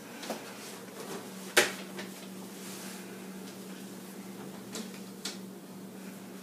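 Kitchen handling knocks as a hot metal baking tray and the oven are handled: one sharp knock about a second and a half in, the loudest, and a few lighter clicks near the end, over a steady low hum.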